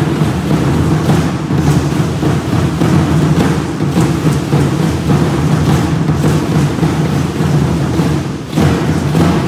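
Large upright huehuetl drums beating steadily to accompany Aztec danza, with a brief dip in loudness near the end.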